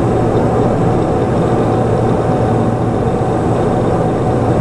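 Steady cockpit drone of a Pilatus PC-12/47 in flight, its single Pratt & Whitney PT6A-67B turboprop and propeller running at constant power, with a low hum under it.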